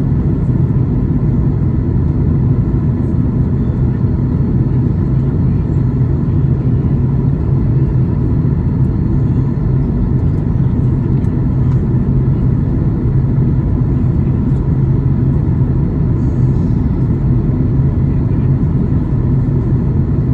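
Cabin noise of a Boeing 737 MAX 8 in flight: the steady low rumble of its CFM LEAP-1B engines and the airflow over the fuselage, with a constant low hum.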